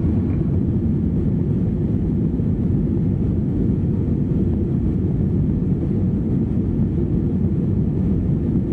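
Cabin noise of an Airbus A321-212 after takeoff: a loud, steady low rumble from its CFM56 engines and the airflow, heard from inside the cabin.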